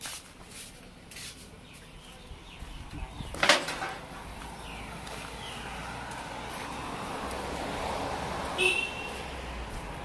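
Quiet outdoor ambience with a few short bird calls, one near the end; a single sharp, loud noise about three and a half seconds in is the loudest sound.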